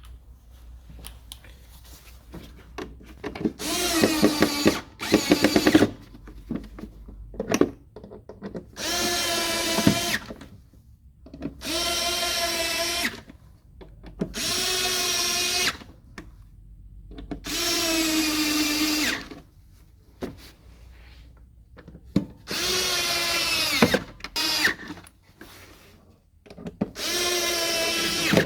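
Cordless power drill/driver running in about seven short bursts of a second or two each, with pauses between; each burst is a steady whine at constant speed.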